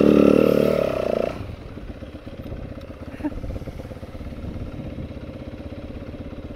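Yamaha four-stroke single-cylinder dirt bike engine revving under throttle. About a second and a half in the throttle comes off and it drops to a quieter, steady low-throttle run.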